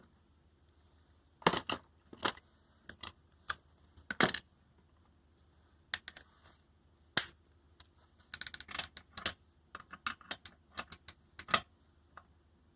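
Scattered sharp clicks and taps of metal hand tools being handled, with a quick run of clicks about eight to nine and a half seconds in.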